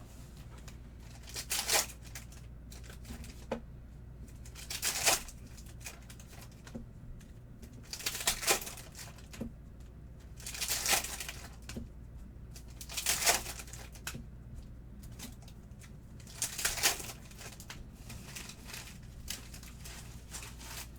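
Panini Prizm basketball card pack wrappers being torn open and crinkled: about six short bursts of tearing and crinkling a few seconds apart, with quieter handling in between.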